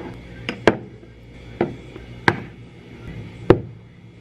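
Five sharp, separate knocks of hard objects on a kitchen work surface, coming at uneven intervals over about three seconds, the last one loudest.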